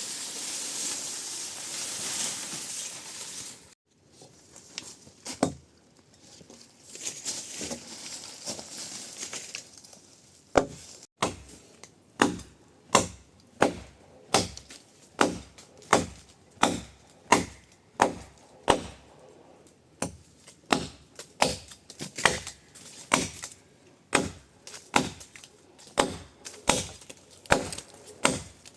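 A rushing hiss for the first few seconds. Then, from about ten seconds in, a steady run of chopping: a blade striking wood about one and a half times a second.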